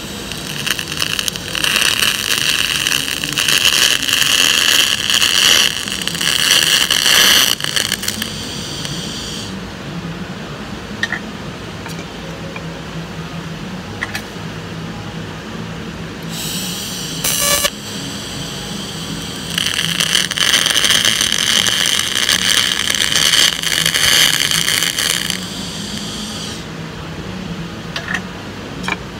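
TIG welding arc on brass: a loud, steady hissing buzz for the first nine seconds or so, again briefly past the middle, and then for about seven seconds more, stopping and starting as the arc is struck and broken. Under the gaps there is a quieter steady hum.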